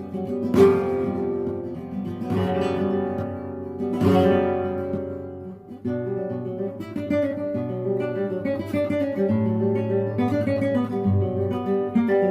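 Background music on acoustic guitar: strummed chords for the first few seconds, then a run of picked notes over a low bass line.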